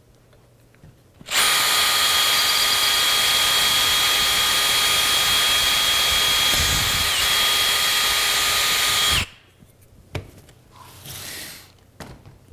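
Cordless drill running steadily as it drills a number 10 hole through a thick piece of metal, starting about a second in and stopping suddenly after about eight seconds.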